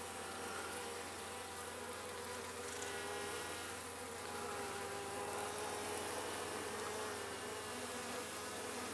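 Honeybees buzzing around an opened hive: a steady hum of several overlapping, slightly wavering pitches.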